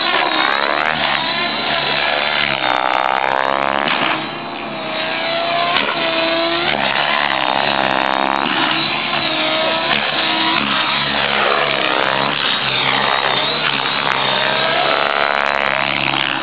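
Thunder Tiger e720 electric RC helicopter in flight: the whine of its motor and rotor blades swoops up and down in pitch over and over as it manoeuvres, with a brief dip in loudness about four seconds in.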